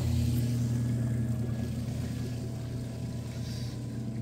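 Small electric water pump starting up and running with a steady hum. It is a little louder at first, then settles as it pushes air ahead of the water through the empty lines.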